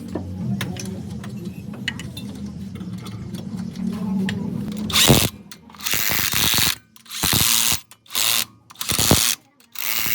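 Workshop tool sounds: ratcheting clicks over a low hum, then from about halfway six loud, short hissing bursts with brief silences between them.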